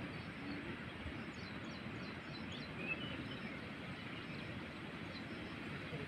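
Steady outdoor background noise, with a few faint, short high chirps in the first half.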